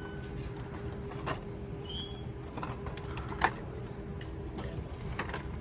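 Steady low hum of a shop's background machinery with a few scattered clicks, the sharpest about three and a half seconds in.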